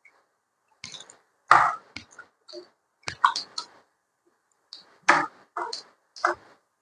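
Raw chicken drumsticks being pressed and kneaded by hand in a thick yogurt-and-cornflour marinade: an irregular run of short wet squishes and a few sharp clicks.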